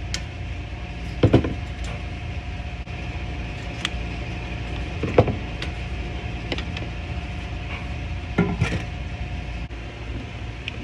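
A few sharp knocks and clatters, the loudest about a second in, about five seconds in and near eight and a half seconds in, over a steady low hum.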